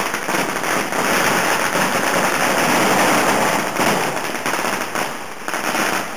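Dense, continuous crackle of many firecrackers and fireworks going off at once, a rapid rattle of small bangs that eases slightly near the end.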